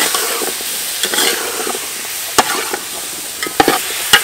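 Metal ladle stirring chopped vegetables in an aluminium pot, clinking sharply against the pot a few times over a steady hiss.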